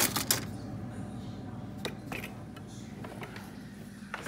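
Plastic spoons clicking and clattering as they are handled inside a refrigerator, over its steady low hum. One loud sharp knock near the end.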